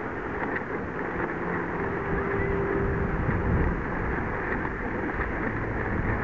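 Steady wind rush on the microphone mixed with small waves washing onto the beach, with a faint hum underneath for a second or two.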